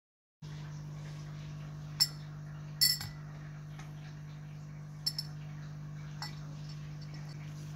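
A few sharp clinks as the pH meter's probe knocks against the glass tumbler of water it stands in: one about two seconds in, a double near three seconds, a quick pair around five seconds and a lighter one near six, over a steady low hum.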